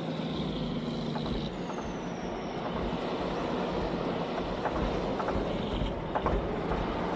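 A truck running, a steady low rumble throughout, with a hum for the first second and a half and a thin falling squeal about two seconds in.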